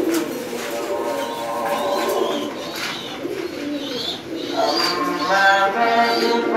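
Many domestic pigeons cooing together in a caged loft, a continuous low throaty murmur, with a few higher chirps.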